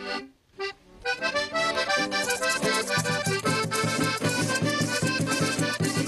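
Cuereta (diatonic button accordion) playing an eastern Venezuelan joropo tune with band accompaniment, starting about a second in after a brief break. A steady low beat joins about three seconds in.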